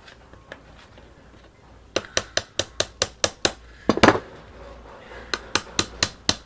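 Light hammer taps on metal, driving a pin into a Triumph Stag door handle: two runs of quick taps, about five a second, with one heavier blow between them.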